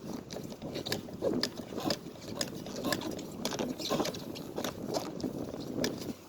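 Screwdriver turned by hand, driving screws into a fire alarm pull station's back box: a run of irregular small clicks and scrapes.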